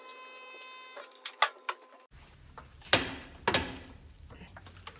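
A few fading music tones, then light clicks and two sharp metal clanks about half a second apart near the middle, from the floor jack being worked under the raised utility vehicle.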